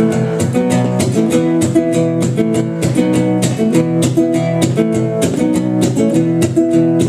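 Acoustic guitar strummed in a steady, even rhythm, with chords changing every second or so, and no singing: an instrumental break between verses of the song.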